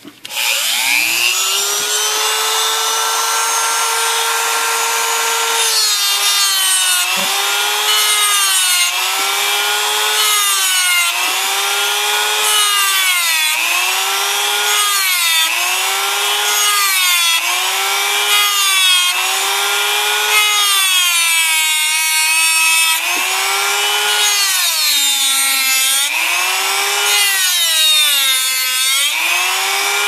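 Dremel rotary tool with a cut-off wheel spinning up to speed and cutting a slot into a metal bracket. Its whine rises at the start and holds steady. From about six seconds in, the pitch dips and recovers again and again, about every second and a half, as the wheel is pressed into the metal in repeated strokes.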